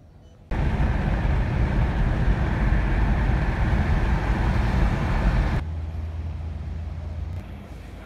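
Road and engine noise inside a car driving at highway speed, starting abruptly about half a second in. After about five seconds it drops to a quieter, steady low hum, and near the end to faint background noise.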